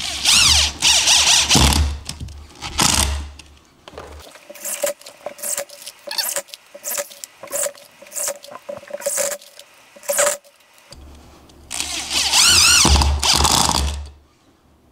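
Ryobi CID-1100 cordless impact driver driving wood screws into a board, its impact mechanism clattering ("ga-ga-ga-ga") in loud bursts as the screws go in. Between the bursts there is a quieter stretch of clicks and short lighter runs.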